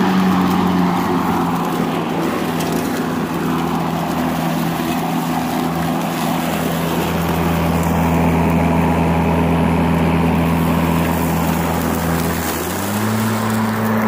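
Makita 18V X2 (36V) cordless electric lawn mower running, a steady motor-and-blade hum with a whine. The pitch drops about a second in as the motor slows under load in thick weeds and tall grass, and climbs back up near the end as the load comes off.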